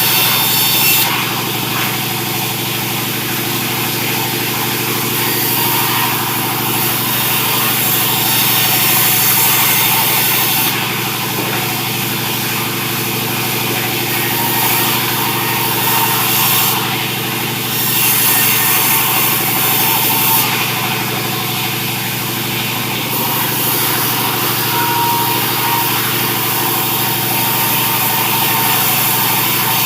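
Sawmill running: a steady engine-driven drone throughout, with the hiss of the saw cutting sengon wood that swells and eases several times.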